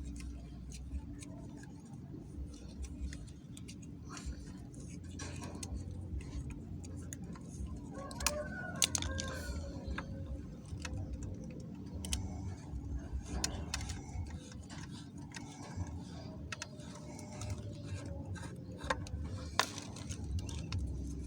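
Scattered light clicks and taps of tools and small metal parts being handled, over a steady low hum.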